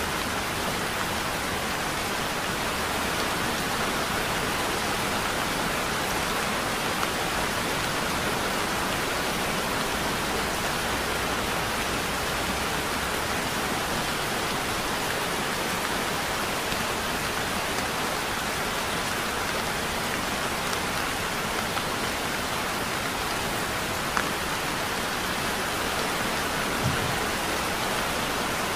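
Heavy rain falling steadily as an even hiss. Near the end there are two brief single knocks.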